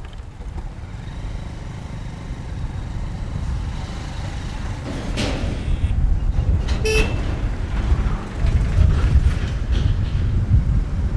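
Heavy road traffic heard from a bike riding through it: a steady low rumble of engines that grows louder, with a vehicle horn honking briefly about seven seconds in.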